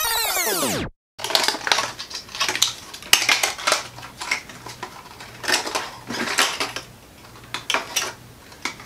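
A sweeping transition sound effect, many pitches arching up and down, cutting off about a second in. Then small plastic and cardboard makeup packaging handled: irregular clicks and clatter.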